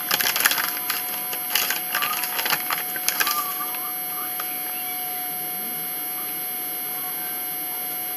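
Crinkling and rustling of cookie dough packaging handled close by, a dense run of small clicks and crackles that stops about three and a half seconds in. After that only a steady background hum and hiss is left.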